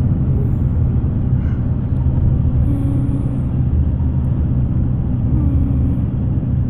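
Steady low rumble of a car driving, engine and road noise heard from inside the cabin.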